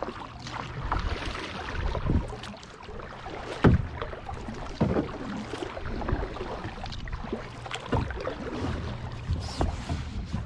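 Kayak being paddled through shallow water: irregular paddle splashes and dull knocks, the loudest about three and a half seconds in.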